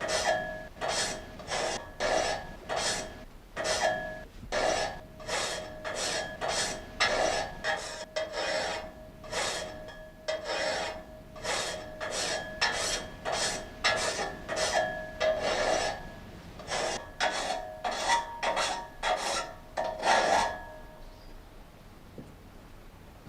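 Water-wheel-driven vertical frame saw cutting a log in steady rasping strokes, a little over two a second, which stop about three seconds before the end.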